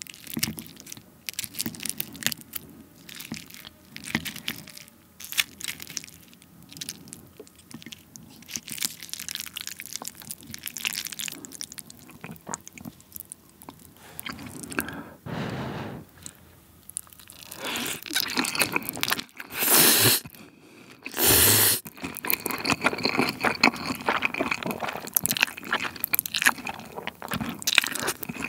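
Close-miked eating sounds from black-bean sauce instant noodles (Nongshim Chapagetti) with a fried egg: chopsticks picking at the egg and sticky noodles, then wet chewing and crunching. About two-thirds of the way through come two loud slurps about a second apart, followed by busy chewing.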